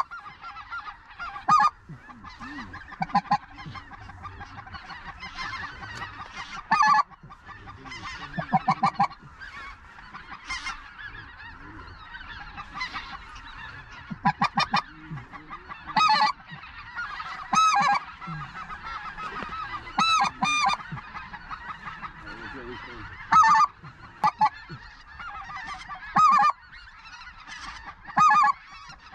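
Large flocks of greater white-fronted geese (specklebellies) calling overhead: a constant chorus of high yelping calls, with loud, close calls breaking out every one to three seconds.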